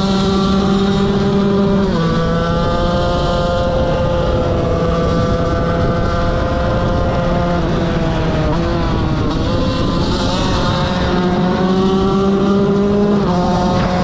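KTM 125 motorcycle engine running hard under full throttle, its high-pitched note holding and then stepping abruptly as it shifts gear about two seconds in and again near the end. In the middle the revs drop briefly and then climb back up.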